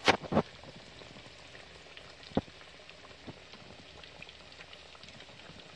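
Faint, steady crackle of hot frying oil with scattered small pops. There are a few quick knocks right at the start and one sharp click about two and a half seconds in.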